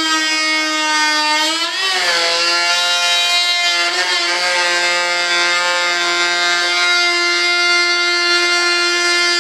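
High-speed handheld rotary tool cutting through a fibreglass flange, a steady high whine. About two seconds in the pitch sags and then recovers as the wheel takes a heavier bite.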